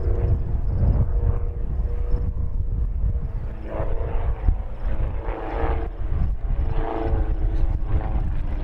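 Engines and fixed-pitch propellers of two 160 hp Van's RV-4 light aircraft droning overhead as the pair climbs into a formation loop, over a heavy low rumble. The engine note shifts in pitch a few times.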